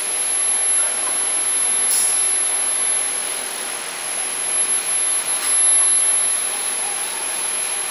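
Small benchtop metal lathe running with its spindle turning and the tool cutting a spinning bar, chips curling off: a steady machining hiss with a thin, steady high-pitched whine over it.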